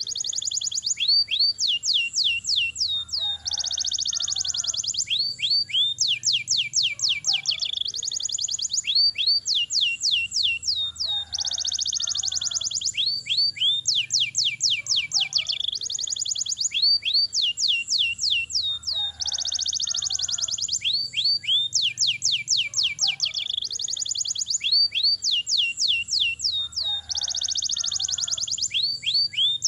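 Domestic canary singing long rolls: rapid trills of repeated high chirping notes, one phrase running into the next without a break.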